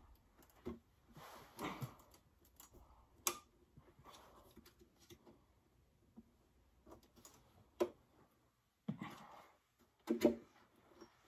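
Scattered clicks and knocks, with some soft rustling, from hands fitting the animatronic's motor mechanism onto the top of its metal stand pole.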